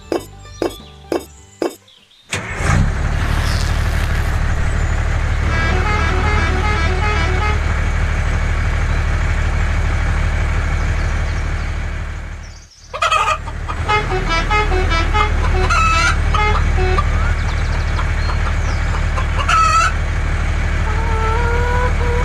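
A motor vehicle engine running steadily, with hens clucking over it. It cuts out for a moment a little past halfway and starts again. It is preceded by about two seconds of light, regular clinks.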